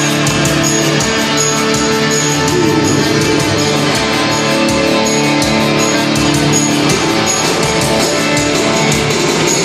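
Gothic rock band playing live with amplified electric guitars over a steady beat, a high tick repeating about every three quarters of a second.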